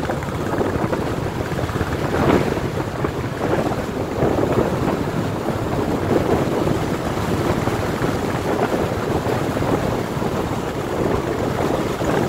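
Wind buffeting the microphone while on the move, mixed with the steady running of a group of Royal Enfield motorcycles riding in a column.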